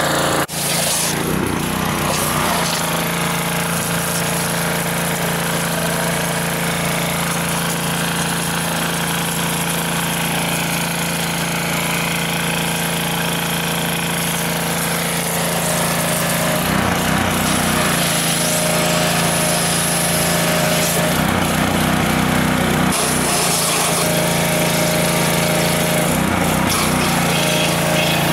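Gasoline pressure washer's small engine running steadily at full throttle, with the hiss of the high-pressure water jet washing acid residue and crud off a cast engine block.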